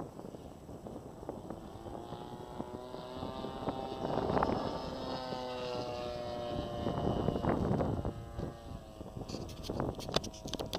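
Two-cylinder petrol engine of a radio-controlled P-51 Mustang scale model in flight, its drone swelling in about two seconds in and fading away near the end as the plane passes, with wind buffeting the microphone. A few sharp clicks near the end.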